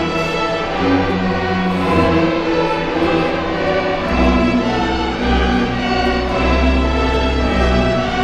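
An elementary school orchestra playing live, with sustained string chords; deep bass notes come in about four seconds in.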